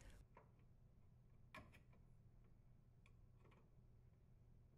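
Near silence, with a few faint, short clicks from the metal junction box cover plate being handled and pressed into place.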